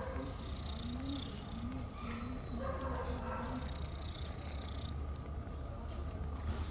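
Tabby kitten purring as it rubs its face against a hand, with a few soft wavering calls in the first half.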